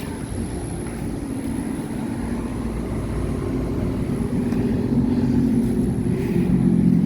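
Outdoor air-conditioner and heat-pump condensing units running in cooling mode: a steady low compressor hum with condenser-fan noise, growing louder toward the end.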